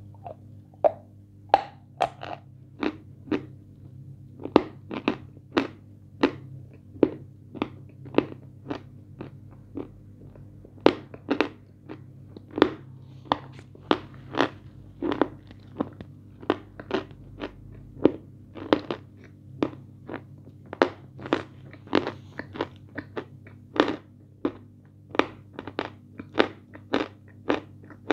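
Close-miked crunching and chewing of a hard, brittle food, with sharp crunches coming roughly once or twice a second over a low steady hum.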